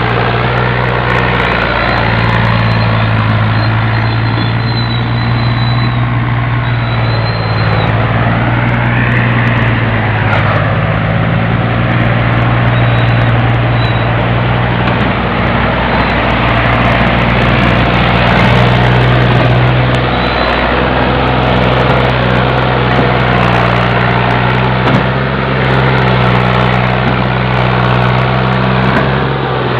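Fiat 480 tractor's three-cylinder diesel engine labouring under a heavy load as it pulls a trolley piled high with sugarcane. It runs as a loud, steady drone whose pitch dips briefly a few times.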